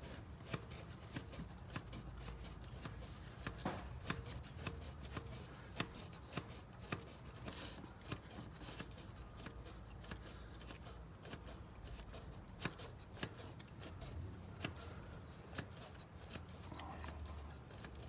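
Repeated irregular clicks and clacks of the hand primer plunger on a Duramax LB7 fuel filter head being pumped over and over, priming the system to fill the new filter with diesel and build pressure, over a low steady rumble.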